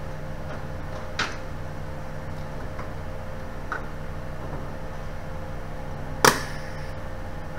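Steady electrical hum of an idling MIG welder, with two sharp clicks of metal being handled, a light one about a second in and a louder one near the end; no arc is struck.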